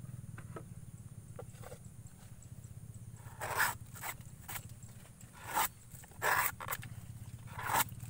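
About seven short rasping scrapes in the second half, as a tapper's knife and hand work at the bamboo sap tube on a coconut flower stalk, over a steady low hum.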